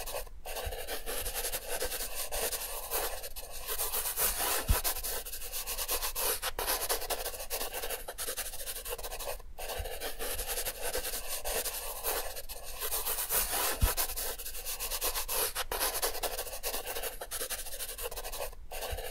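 Thick felt-tip marker drawn across paper: the tip rubbing and scratching in repeated strokes as the lines are traced, with a few brief pauses between strokes.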